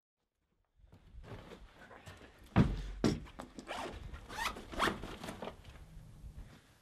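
Backpack zipper being pulled open in several quick rasping strokes with fabric rustling, the loudest stroke about two and a half seconds in.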